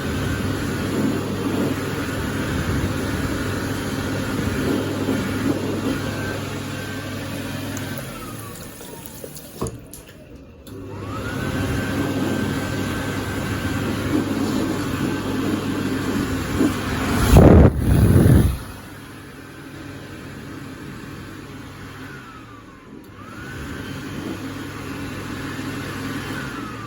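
Warner Howard SM48 electric hand dryer running in three cycles of several seconds each: the motor's whine rises as it starts, holds steady, then falls away as it shuts off. A brief, much louder rush of noise comes near the end of the second cycle. The uploader finds this dryer very quiet, with cold, weak air.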